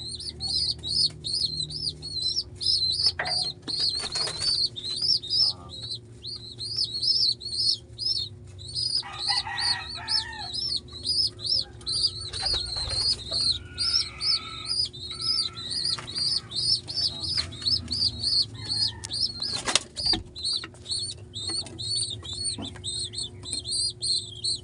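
Pigeon squabs begging: a steady run of short, high-pitched squeaking peeps, about three a second, with bursts of wing flapping as a squab beats its wings at the parent.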